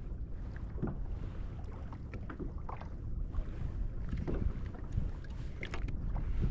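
Wind rumbling on the microphone, with water lapping and scattered small knocks and clicks around a kayak.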